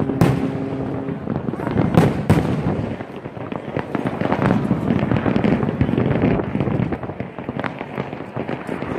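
Aerial fireworks display: a continuous crackle of distant shells bursting, with repeated sharp bangs, the loudest in the first few seconds. A steady low tone sounds at the start and stops about a second in.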